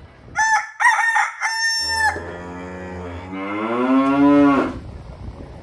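A rooster crows a full cock-a-doodle-doo, then a cow gives one long moo that rises in pitch and ends about three seconds later.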